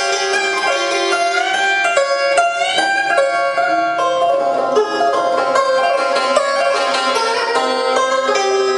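Background music on Vietnamese traditional plucked string instruments, with some notes bent upward in pitch about two seconds in.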